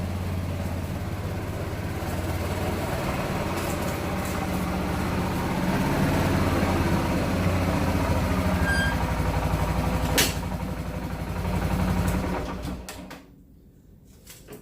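Kawasaki four-wheeler's engine running steadily after starting on the first pull following months of sitting. There is a sharp knock about ten seconds in, and the engine stops about thirteen seconds in.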